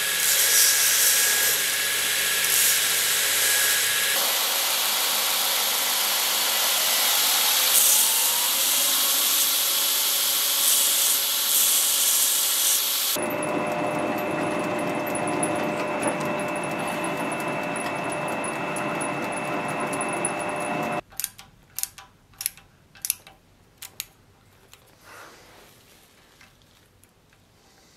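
Belt grinder running with steel being ground against its abrasive belt. About halfway through, a drill press takes over, drilling into steel clamped in a machine vise with a steady motor tone. Near the end the machine noise stops and a few sharp metallic taps sound as a pointed hand tool marks a thin metal sheet.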